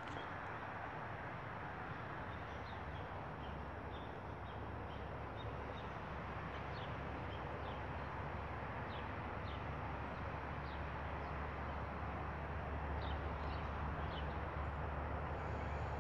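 Steady outdoor background rumble and hiss, with small birds chirping faintly and briefly throughout; the low rumble grows louder in the second half.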